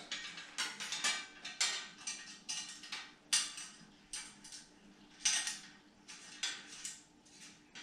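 Irregular light metallic clicks and clinks as a bicycle's rear rack and its mounting bolts are handled and threaded into the frame mounts, with a faint steady hum underneath.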